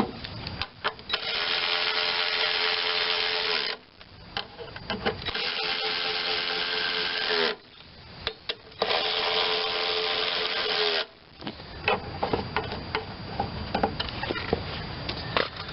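Power drill/driver running in three spells of about two and a half seconds each, a steady motor whine as it drives fasteners home, with clicks of tool and part handling in between.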